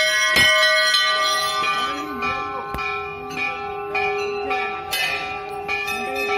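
Large hanging metal temple bells rung by hand, several strikes one after another, each leaving a long ringing tone that overlaps the next. Voices can be heard faintly underneath.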